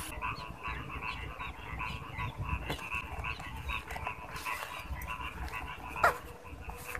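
A steady chorus of short, rapid chirping animal calls, with a low rumble underneath. About six seconds in, one short call falling in pitch stands out as the loudest sound.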